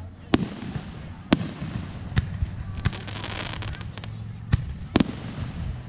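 Aerial firework shells bursting: about half a dozen sharp bangs at irregular intervals, the loudest about a third of a second in, just over a second in, and near the end.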